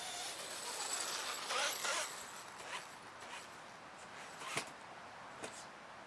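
Handling noise from setting up a clipped paper target and small camera: rustling swishes in the first two seconds, then a few short, sharp clicks spaced a second or two apart.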